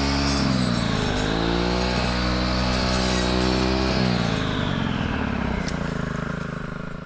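Brush cutter with a metal saw blade running at high revs while cutting brush; the revs dip briefly about a second in and recover. About four seconds in the throttle is let off, and the engine slows and fades toward idle.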